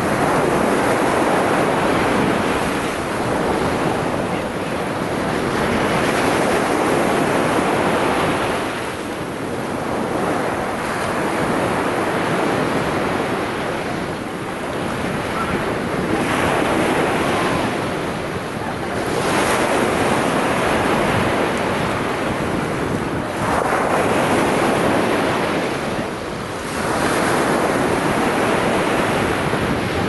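Sea surf: small waves breaking and washing up the shore, swelling and easing every few seconds.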